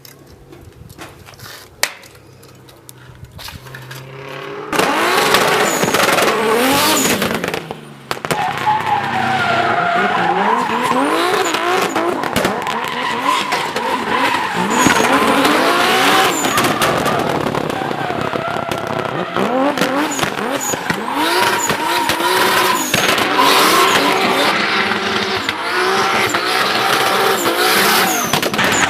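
A turbocharged 2.5-litre BMW E30 drifting. The engine revs up and down again and again while the rear tyres squeal as they slide, starting loud about five seconds in after a quieter opening.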